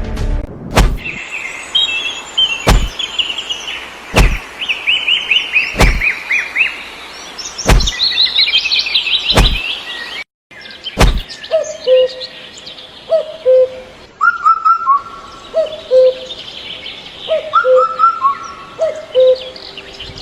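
Birds chirping, with a heavy thud about every second and a half, seven in the first eleven seconds. After a brief break the thuds stop, and a bird repeats a short two-note call over and over while other birds chirp faintly.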